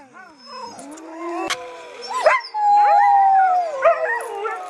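Several huskies howling together, long wavering howls overlapping at different pitches, with a few short yips. One howl is held loud for about a second just past the middle and slides down at its end.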